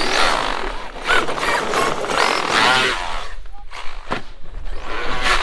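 Electric RC monster truck, a Traxxas X-Maxx, driving fast over tarmac: motor whine and tyre noise, with people's voices shouting over it.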